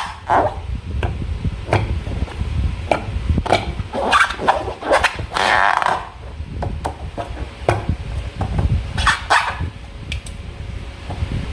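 Slime being squeezed and stretched by hand, with many short sticky clicks and snaps and a few longer squelches, over a steady low rumble.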